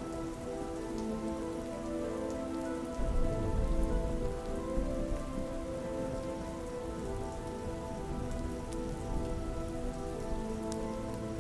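Steady soft rain with scattered light clicks of drops, over slow held chords of ambient synth music. A low rumble swells about three seconds in and fades over the next couple of seconds.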